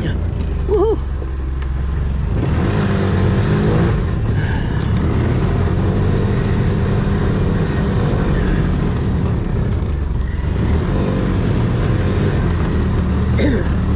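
Side-by-side UTV engine running while driving, its pitch shifting up and down a few times with the throttle.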